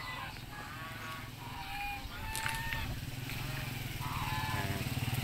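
A small engine running steadily with a fast low pulse, growing louder toward the end, while farm fowl give short calls now and then over it.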